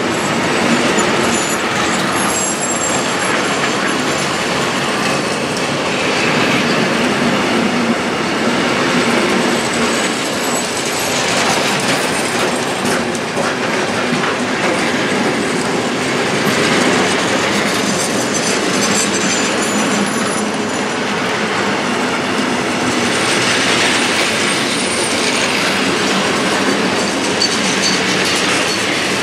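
Freight train of high-sided open coal wagons rolling steadily past at close range: continuous wheel-on-rail rumble and clatter, with a faint high wheel squeal at times.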